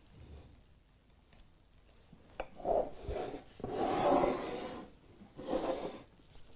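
Handling noise while a dessert is assembled: a single click about two and a half seconds in, then several short bursts of rubbing and scraping.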